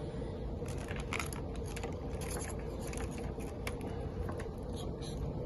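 Small clicks and light scrapes of oscilloscope probe clips and test leads being handled and attached, over a steady hum.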